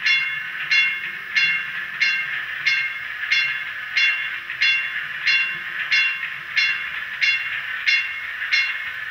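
Trolley bell sound from the model's DCC sound decoder, played through its small speaker: a bell struck again and again, about three strikes every two seconds, over a steady hiss.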